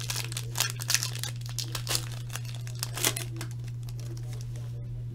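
Foil wrapper of a trading-card pack being torn open and crinkled by hand, a quick run of sharp crackles over the first three seconds that then dies down. A steady low hum runs underneath.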